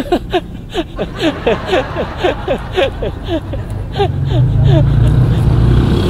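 A quick run of short, falling squeaky notes, about four a second, whose source is not shown. From about four seconds in, a low engine rumble of motor traffic swells under it as motorbikes pass.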